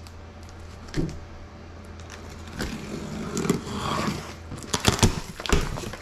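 Plastic packing straps being pulled off a cardboard box and the box flaps opened: cardboard scraping and rustling, with a knock about a second in and several sharp snaps near the end.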